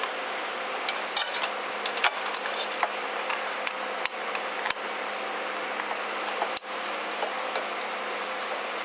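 Small metallic clicks and scrapes of a long-handled 7/64 inch hex key working two small hex head screws out of a temperature controller's mounting. A run of clicks comes in the first few seconds, then a few single sharp clicks, over a steady background hum.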